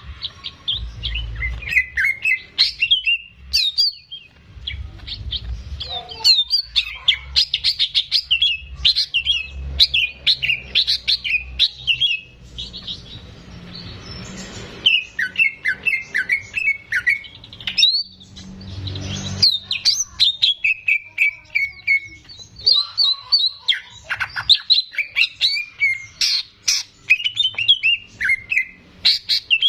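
Green leafbird (cucak ijo) singing a long, lively run of rapid, varied chirps and whistled gliding notes, with a short pause about halfway through.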